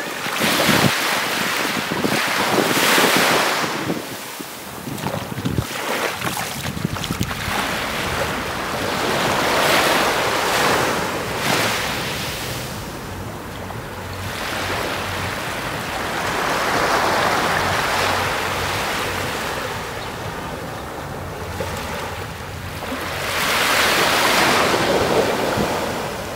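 Small waves washing onto a sandy beach, the surf noise swelling and fading every few seconds, with some wind buffeting the microphone.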